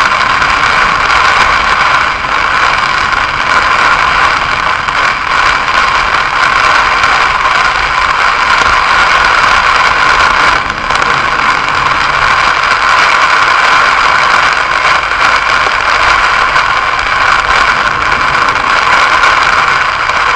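Heavy rain hitting a car's roof and windshield, heard from inside the cabin: a loud, steady dense hiss of countless drops.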